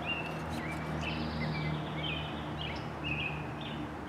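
Birds chirping over and over, short high notes every half second or so, over a steady low background hum, with a few faint clicks.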